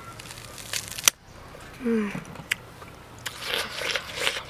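A boy biting into and chewing crisp watermelon: wet crunching bites, thickest in the last second and a half. A sharp click about a second in, and a short hummed 'mm' around two seconds.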